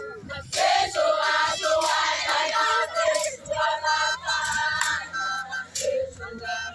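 A large group of girls and young women singing together in chorus, high voices moving in unison and harmony. The singing starts about half a second in and dies away near the end.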